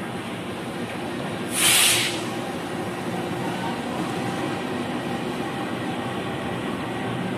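KAI CC 206 diesel-electric locomotive running slowly past during shunting, a steady engine drone, with a loud half-second burst of hissing compressed air about one and a half seconds in.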